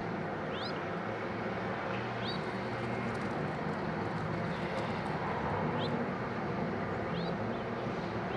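Steady low mechanical rumble with a faint hum, like a running engine, with a bird's short, high, rising chirp heard four times over it.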